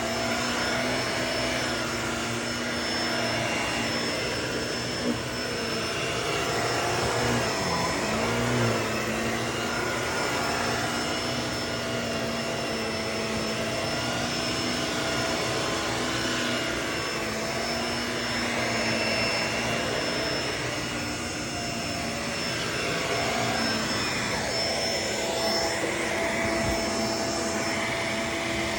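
Vacuum cleaner running steadily, its motor whine dipping and wavering briefly about eight seconds in.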